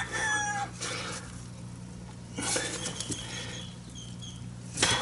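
Metal collar being worked by hand into a new, lubricated leaf spring bushing on a golf cart: light scraping and small clicks, with a sharper knock near the end.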